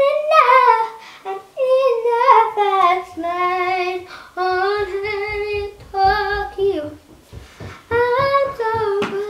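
A young girl singing loudly without accompaniment, in a string of held notes that slide up and down, broken by short pauses.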